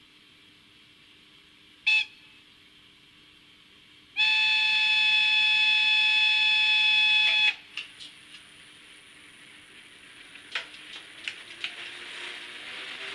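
A ZIMO MS500 sound decoder in an N-scale ÖBB class 1045 model locomotive plays a locomotive whistle through its tiny 12 x 8 mm speaker: a short toot about two seconds in, then the long whistle held steady for about three seconds, which cuts off sharply. A few clicks follow, then a slowly rising running noise as the model starts to move.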